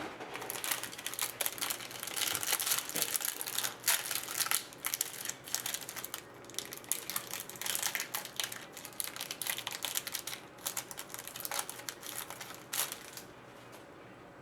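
Plastic wrapping crinkling and tearing as a box of trading cards is unwrapped by hand, a dense run of crackles that stops near the end.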